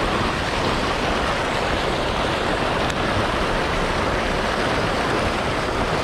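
Rain-swollen water rushing steadily through a lake spillway: a loud, even rush of churning whitewater.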